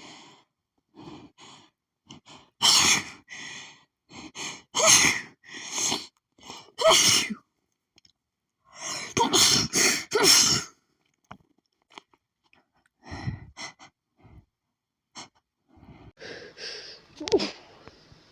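A woman's allergic sneezing fit, set off by sniffing lily pollen: several loud sneezes in two runs, each a second or two apart, with short sniffs and catching breaths between them and fainter breathing near the end.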